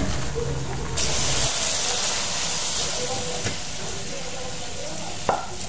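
Hot cooked octopus hissing and sizzling as it steams, a steady high hiss that starts suddenly about a second in and slowly dies down, with a sharp click near the end.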